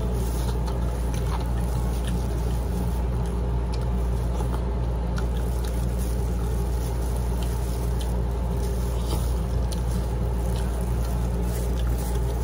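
Close-up eating sounds of chicken adobo and rice eaten by hand: chewing, with scattered small wet clicks and lip smacks, over a steady low hum that is the loudest thing throughout.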